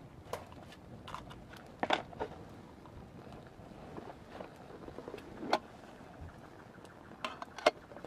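Fuel burning in a small folding pocket stove, just lit and flaring, with scattered sharp crackles and pops over a faint steady background.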